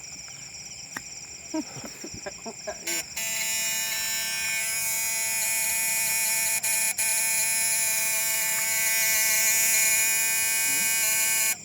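Electric fishing gear's power unit switched on, giving a loud, steady electric buzz that starts about three seconds in, drops out twice briefly in the middle, and cuts off suddenly at the end.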